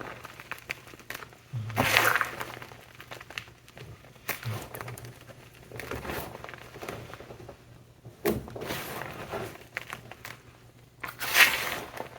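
Blocks of gym chalk topped with shaving gel and glitter being crushed: about five separate crumbly, crunching squeezes with pauses between them, the loudest near the end.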